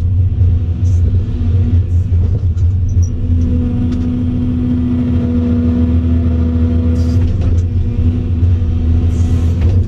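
Volvo EC700CL excavator's diesel engine running steadily at low throttle, heard inside the cab, as the boom and bucket are worked. A higher steady whine comes in about two and a half seconds in and drops out about seven seconds in, with a few short hisses and clicks.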